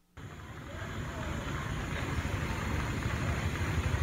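Steady rushing 'shh' of a white-noise machine masking the speeches at an event, heard from across the street, with a low rumble underneath. It cuts in just after the start and swells over the first second.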